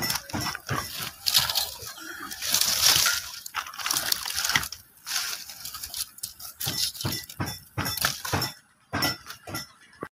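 Wood fire crackling and snapping in a mud stove's firebox, with dry sticks and leaves rustling and breaking as they are pushed into the flames. A louder stretch of hissing crackle comes a couple of seconds in.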